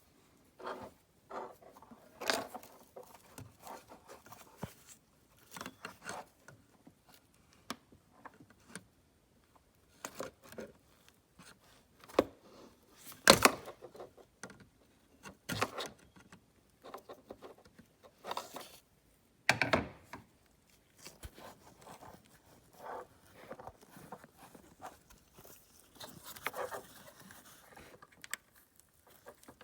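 Hands working on plastic wiring connectors and parts in a car's engine bay: irregular clicks, taps and scrapes, with two sharper knocks about halfway through.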